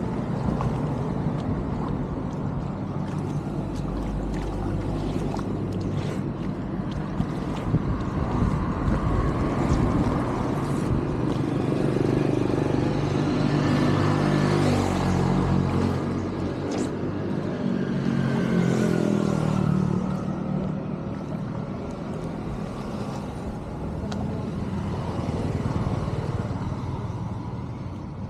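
An engine running, its speed rising and falling in slow swells, with a faint high whine over it.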